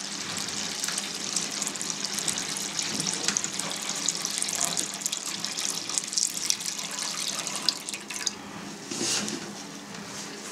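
Whey pouring in a steady stream from a stainless steel pan into a steel tray of whey, splashing as it tops up the bath so the whey covers the cheese curd. The pour stops about eight seconds in, leaving a few small splashes.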